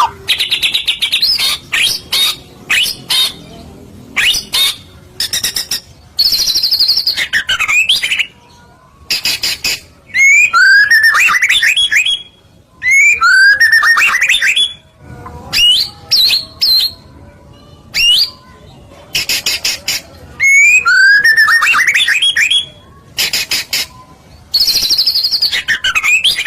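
White-rumped shama (murai batu) in loud, full song. Phrases of whistled slurred notes alternate with rapid harsh rattles and clicks, delivered in bursts with short pauses between them.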